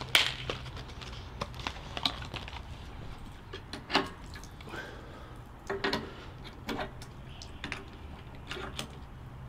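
Scattered small clicks, taps and rattles of a pressure gauge and brass quick-connect fittings being handled and fitted onto a pressure washer's pump outlet by hand, with the engine stopped.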